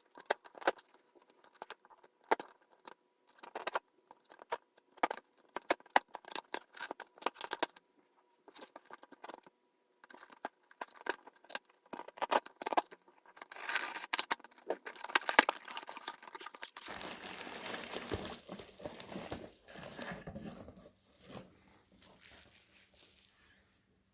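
Packaging being handled and opened: scattered clicks and crinkles of plastic and cardboard, then a few seconds of continuous tearing and rustling about two-thirds of the way in.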